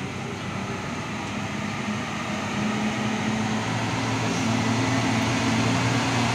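Diesel engine of a heavily loaded Mitsubishi Fuso truck labouring through deep mud: a steady low engine drone that grows louder as the truck comes closer.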